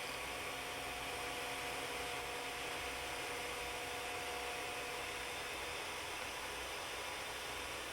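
3D printer running while it prints the first layer in PLA: a steady fan hiss with a faint motor whine that fades about five seconds in.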